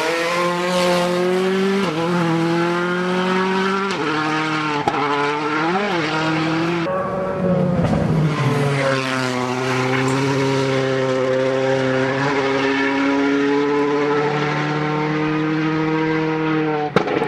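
Rally car engines running hard, a pitched drone held at a nearly steady note with brief dips and rises in pitch. The sound changes abruptly about seven seconds in and carries on as another steady engine note.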